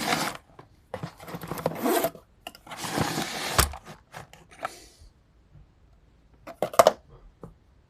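Zipper fidget toy being zipped, three rasping runs of about a second each, followed by a few sharp plastic clicks near the end.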